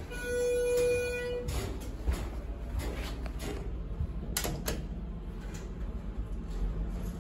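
Schindler hydraulic elevator cab: a steady electronic beep lasting about a second near the start, then sharp clicks around four and a half seconds in as the floor 2 call button is pressed, over a low steady hum, with the doors sliding.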